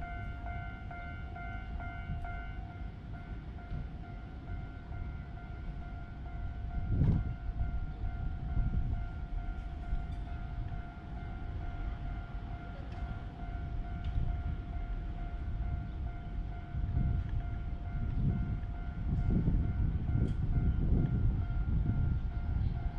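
A train running past, a low rumble that swells twice, the second time from about two-thirds of the way in, under a steady high ringing tone from the railroad crossing's warning alarm.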